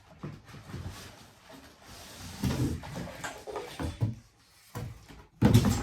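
Animatronic parts being handled in and lifted out of a cardboard shipping box: irregular rustling and light knocking, with a louder knock near the end.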